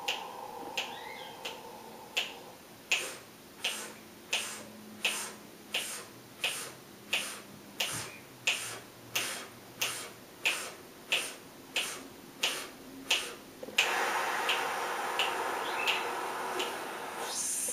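Fingers snapping a steady count, about three snaps every two seconds, over a man's breathing exercise. It starts with a deep open-mouthed inhale and goes quiet while the breath is held. About 14 s in comes a long hissing exhale, which ends in a high sizzle as the last air is pushed out.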